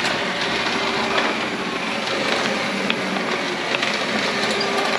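An electric hand mixer running in a bowl together with a hand-cranked mill grinding grains: a steady whirring, grinding noise with small scattered ticks.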